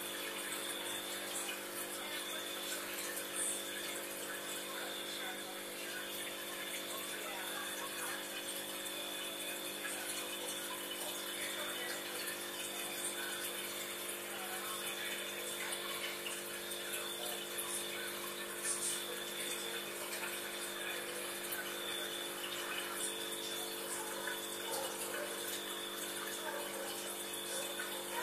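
Aquarium equipment running steadily: an electric pump humming, with water bubbling and trickling from the air stone and filter.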